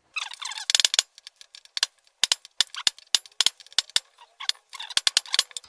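Metal parts and tools clinking and clacking as they are handled on a workbench: a quick cluster of clicks in the first second, then irregular single knocks.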